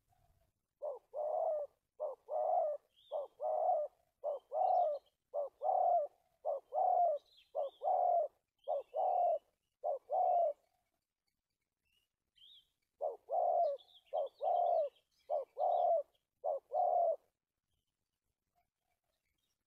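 Spotted dove cooing in its stammering style: short-then-long coo pairs repeated about nine times, a pause of a couple of seconds, then four more pairs. Faint high chirps of small birds sound above it.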